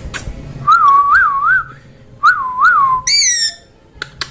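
Pet parrot whistling: two runs of wavering, up-and-down whistled notes, then a short falling call near the end.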